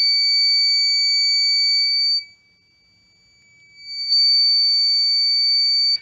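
Buzzer of a homemade flame-alarm circuit sounding a loud, steady, high-pitched tone, set off by a lit match's flame held at its IR receiver sensor. It drops out after about two seconds, comes back on about four seconds in, and cuts off near the end.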